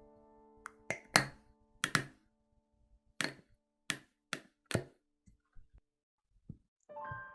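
Irregular series of sharp taps and clicks from objects being handled, about ten distinct strokes, the loudest just over a second in, thinning to faint ticks. Piano music fades out at the start and comes back near the end.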